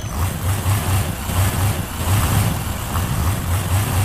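A motor vehicle engine running with an uneven low throb.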